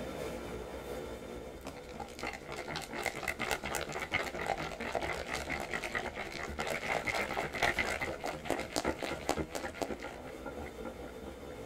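Hand whisk beating a thick cream mixture in a glass bowl: fast, irregular clicking and ticking of the whisk wires against the glass, starting about two seconds in and stopping shortly before the end.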